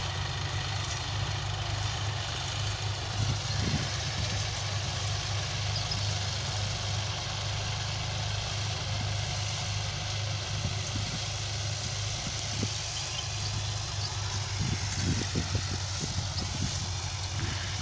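John Deere tractor's diesel engine running steadily under load as it pulls a tined cultivator through tilled soil, a low, even drone.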